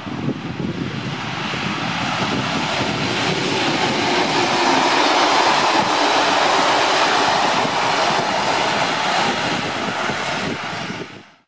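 An ALCO 44 class diesel-electric locomotive, with its V12 ALCO 251 engine, passes at speed hauling passenger carriages. The engine grows louder as it approaches and goes by, then the carriages' wheels run steadily on the rails. The sound cuts off suddenly near the end.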